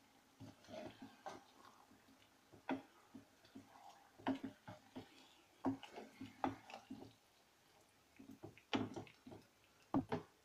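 Spatula knocking and scraping against a pan in short, irregular clicks as chicken in a curd marinade is stirred.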